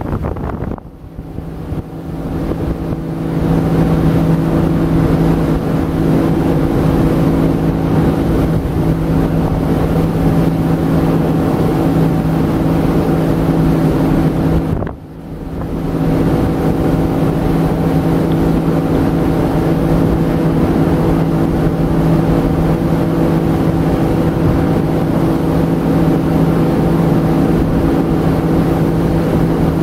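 Motorboat engine running steadily at cruising speed, a constant droning hum. It drops away briefly about a second in and again about halfway through, then comes back at the same level.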